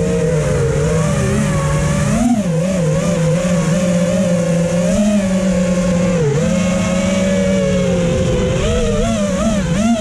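FPV freestyle quadcopter's electric motors and propellers whining, the pitch wavering up and down as the throttle changes, holding steadier for a couple of seconds in the middle.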